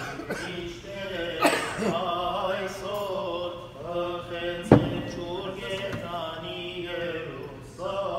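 A male voice chanting liturgy in long, held, melodic phrases. There is one sharp knock a little past halfway.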